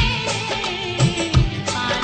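Bollywood film song music: a melody over a steady rhythm of low drum beats.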